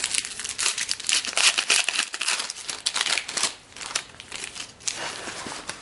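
Trading-card pack wrapper crinkling and rustling in the hands, with dense crackles that are loudest in the first half and thin out near the end.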